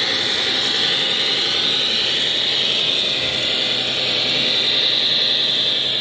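Drivetrain of a large radio-controlled model truck whining steadily as it drives, the pitch drifting slightly up and down.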